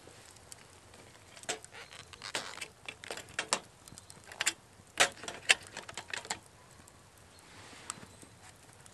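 Metal fish tin handled on a campfire grate with a gloved hand: a cluster of sharp metallic clicks and scrapes as it is lifted and set down, the loudest two close together.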